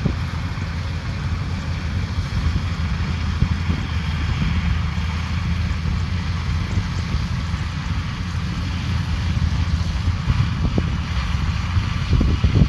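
Rice combine harvester running steadily under load, a continuous low engine rumble with a few short knocks near the end.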